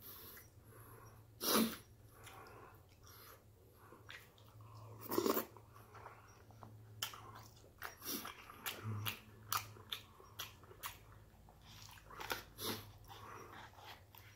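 Close-miked eating sounds: a plastic spoon clicking and scraping in takeout containers of rice and hot soup, with chewing. Two louder breathy noises come about a second and a half and five seconds in, then a run of short sharp clicks.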